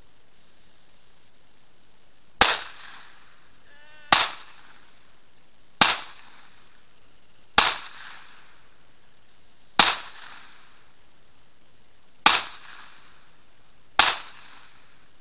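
Century C308 .308 battle rifle fired seven times, single deliberate shots about two seconds apart, each with a short echo.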